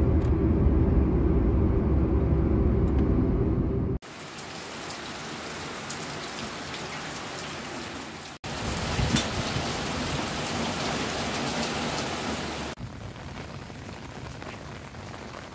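Heavy rain, heard in four short clips cut one after another. The first four seconds carry a loud low rumble under the rain; after that it is a steady rain hiss with many small drop ticks.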